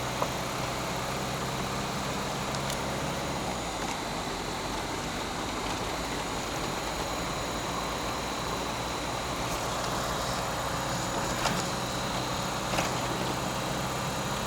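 Car running, a steady mix of engine and road noise; its low engine hum drops away about four seconds in, and a few light knocks sound later on.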